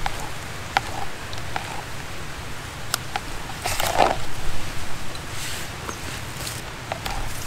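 Irregular light clicks and taps, with a short scraping burst about four seconds in, as a small hand kitchen utensil is worked on mushrooms. A steady low rumble runs underneath.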